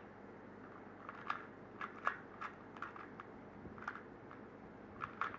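Rubik's cube being turned quickly by hand: its plastic layers click and snap irregularly, a few faint clicks a second.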